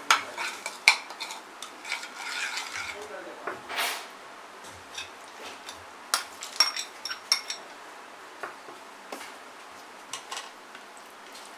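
A spoon stirring and scraping a thick spice-and-oil marinade in a bowl, with sharp clinks against the bowl's side. About six seconds in, raw chicken pieces are tipped in from a second bowl, with a quick run of clinks of spoon and bowl, then a few light knocks.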